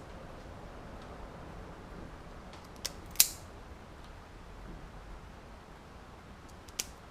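A few sharp snips of a hand wire cutter or stripper closing on automotive wire, a pair a few seconds in and another pair near the end, over a low room hum.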